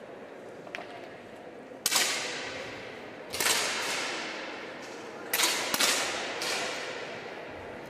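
10 m air pistols firing: four sharp pops, plus a couple of fainter ones, each shot trailing off in a long echo around the hall.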